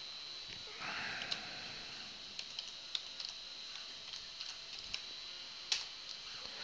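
Computer keyboard keystrokes as a folder name is typed: a scattered run of faint clicks with one sharper click near the end, over a steady faint high whine. A short breathy sound comes about a second in.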